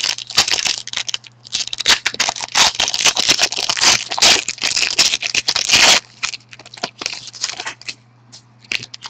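A foil trading-card pack crinkling and tearing as it is opened by hand, with dense crackling for about six seconds, then a few scattered clicks as the cards are handled.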